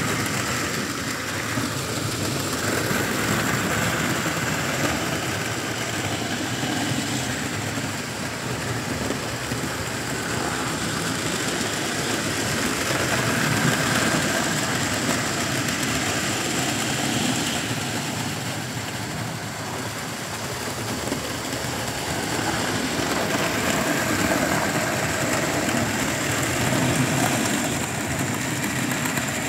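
OO-gauge model trains running on the layout: a steady rumble of small locomotive motors and wagon wheels on the rails, swelling and easing a little as the trains pass, with a thin steady high whine.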